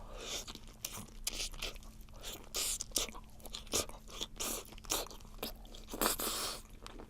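Close-miked biting and chewing of webfoot octopus: a quick, irregular run of sharp wet mouth clicks and crunches.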